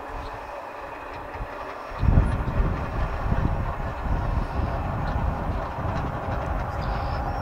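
Approaching CSX double-stack freight train: the lead diesel locomotive's engine and the wheels on the rails make a steady rumble, with a deep low rumble coming up suddenly about two seconds in.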